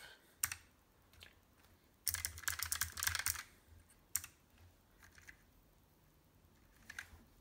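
Keys clicking on a Keychron K1v4 low-profile mechanical keyboard with Gateron blue clicky switches: a single keypress, then a quick run of keystrokes about two seconds in, then a few scattered presses.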